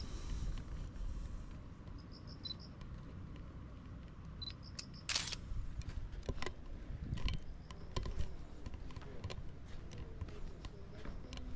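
Fujifilm X100V compact camera being handled and fired: a single shutter click about five seconds in, then a run of small clicks, over a low rumble of handling noise.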